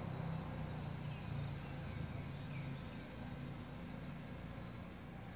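Outdoor garden ambience: a low steady rumble with a thin high insect whine, and a few faint high chirps about two seconds in.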